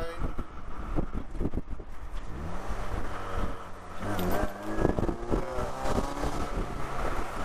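Saturn Sky's 2.4-litre Ecotec four-cylinder accelerating: the engine note rises, breaks off about four seconds in, then rises again. Wind buffets the microphone in the open-top cabin.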